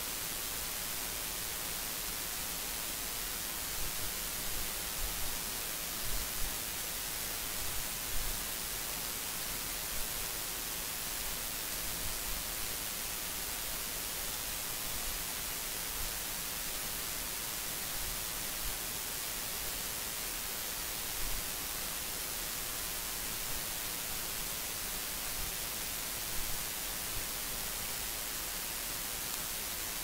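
Steady, even hiss of a recording's electronic noise floor, with a few faint, brief low thumps.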